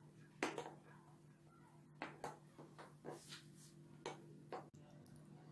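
Spatula stirring a thick milk-and-cornstarch cream with crushed Oreo biscuits in a glass bowl. It gives a handful of soft, irregular scrapes and knocks against the bowl.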